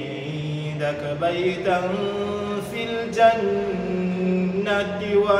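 A man chanting Quranic recitation in a melodic tajweed style. He holds long vowel notes that step slowly between pitches, with only a few short consonant breaks.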